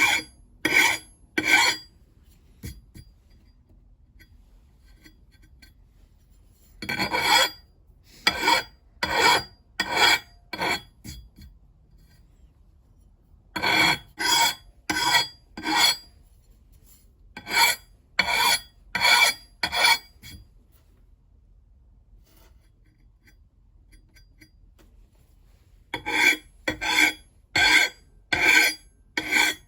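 A hand file rasping across the steel edge of an axe head in sets of quick, even push strokes, with pauses of a few seconds between sets, as the bit is sharpened.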